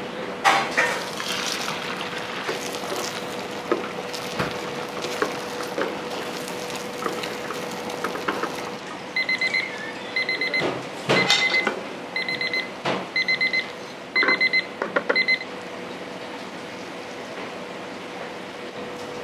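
Electronic alarm beeping in quick groups of short, high beeps, repeated several times over about six seconds, starting about nine seconds in. Kitchen clatter and knocks and a steady hum run under it.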